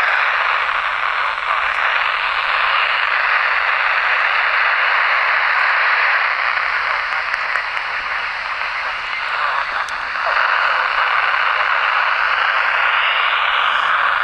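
Handheld FM radio's speaker hissing with static while tuned to the AO-51 amateur satellite downlink. The hiss is steady, sags briefly about nine seconds in, then comes back.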